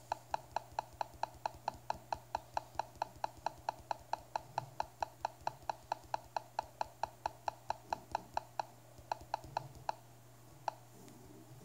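Garmin nüviCam LMT-D sat-nav clicking once for each tap on its touchscreen arrow as the menu list scrolls. There are rapid clicks, about four or five a second, for some eight seconds, then a short pause, a few more clicks and a last single one near the end.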